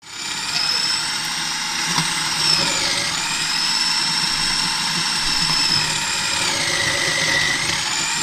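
Electric food processor running with its grating disc, shredding halved Japanese quince fruit pushed down its feed tube. The motor starts abruptly and runs steadily, its high whine dipping in pitch twice, about three and seven seconds in, and recovering each time.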